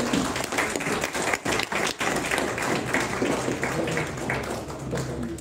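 Audience applauding: many hands clapping in a dense, irregular patter, fading slightly near the end.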